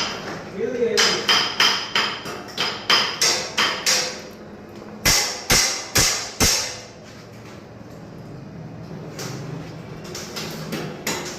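Hammer striking a steel grille: a quick run of about ten ringing blows, then four heavier blows around the middle, and a few lighter taps near the end.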